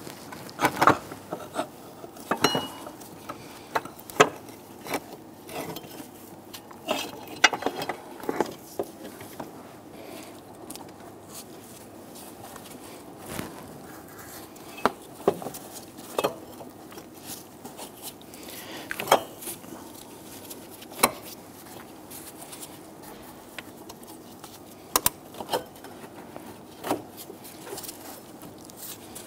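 Irregular metal clinks, knocks and light scrapes as the old water pump is worked loose and pulled out past the AC compressor and hoses in the engine bay of a 4.7L V8.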